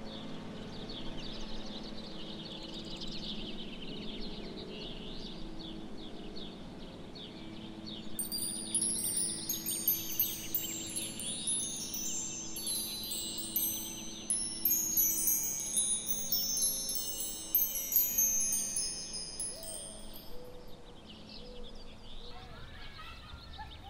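Chimes tinkling: many short, high, ringing notes at different pitches overlapping one another. They start about a third of the way in and die away near the end, over a low steady tone.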